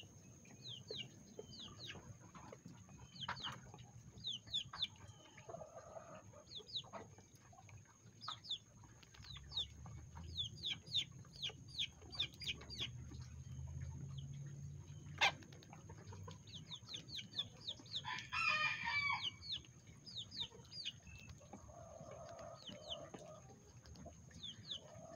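A flock of bantam chickens clucking and giving many short, high chirps. A bantam rooster crows once, for about a second and a half, about two thirds of the way in.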